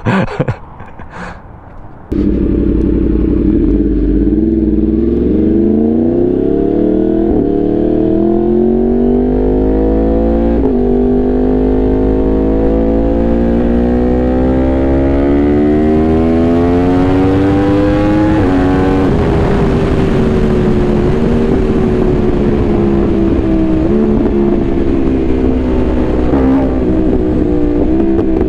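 A sport bike engine accelerating hard. It comes in loud about two seconds in, after a few short knocks, and its pitch climbs through the gears with brief breaks at the shifts. It peaks about two-thirds of the way through, then slowly falls as it eases off.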